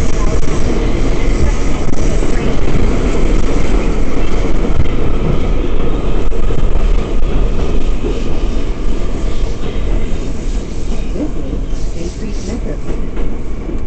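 Interior of an R179 subway car running at speed: loud, steady rumble of wheels on rail and running gear, easing a little in the last few seconds.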